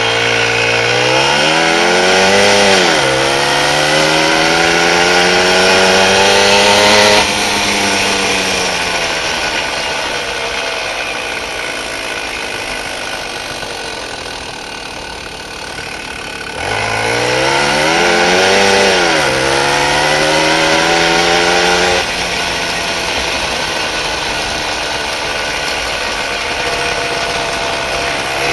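Small, very loud engine revving up under throttle as the vehicle pulls away, its pitch climbing, dipping and climbing again. About seven seconds in the throttle comes off suddenly and the engine runs lower while coasting, then revs up again about 17 seconds in and settles to a lower steady note about 22 seconds in.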